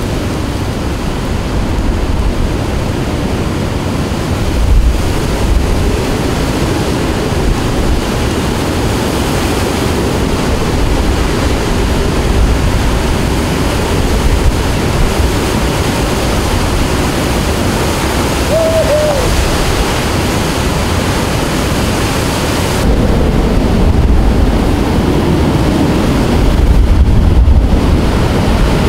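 Hurricane-force eyewall wind and driving rain, a loud continuous rush of noise with heavy wind buffeting on the microphone.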